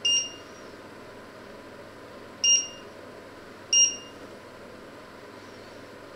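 Touch controls of a glass-ceramic electric hob beeping three times as a finger presses the buttons to change the setting: a short two-pitched beep at the start, another about two and a half seconds in, and a third just under four seconds in.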